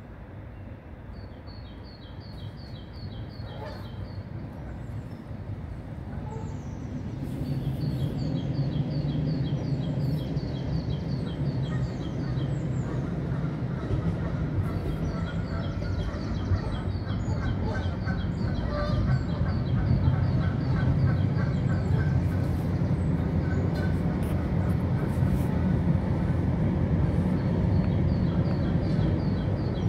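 Manchester Metrolink tram running on the bridge beside the river: a low rumble that builds from about seven seconds in and stays loud. Small birds chirp in short repeated trills over it.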